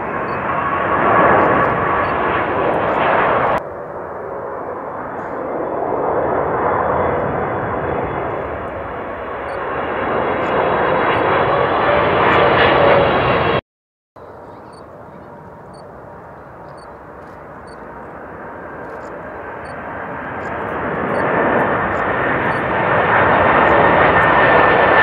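Jet airliners on final approach passing low overhead, one after another: loud jet-engine noise with a steady whine over it. It drops off abruptly a few seconds in, cuts out for an instant about halfway, and builds again toward the end as the next plane comes over.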